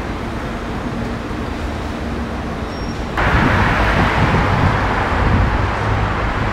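City street ambience: a steady hum of traffic noise, getting suddenly louder about three seconds in.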